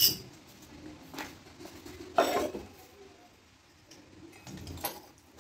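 Metal hand tools clinking and knocking against each other and the motorcycle's front brake parts, in a few separate strikes, the loudest a short clatter about two seconds in.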